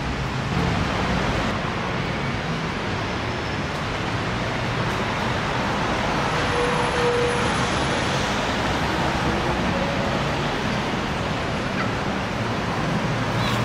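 Steady road traffic noise, a continuous hum of passing vehicles.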